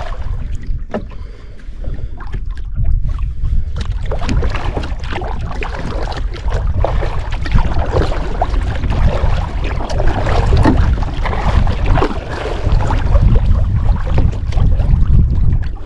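Kayak paddle dipping and splashing in the water stroke after stroke, over a steady low rumble of wind on the microphone.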